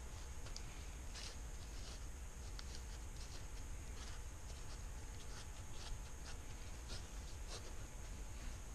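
Light, irregular rustling and small ticks of nitrile-gloved hands working a blacktail deer cape wrapped in a cloth, over a steady low hum.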